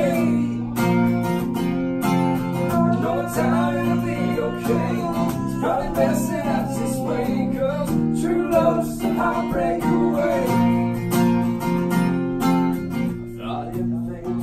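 Acoustic guitar strummed in steady chords while a man sings the melody over it.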